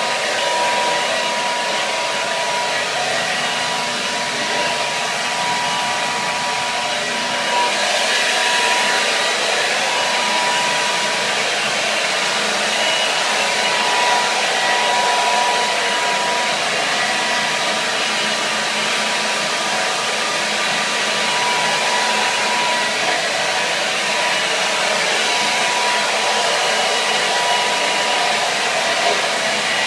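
Hair dryer running steadily: a constant rush of blown air with a thin, even whine in it.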